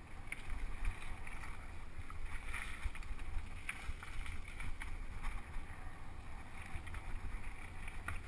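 Low, steady wind buffeting on a GoPro Hero 2 action camera riding on a mountain bike at speed, with scattered clicks and rattles from the bike jolting over a rough dirt trail.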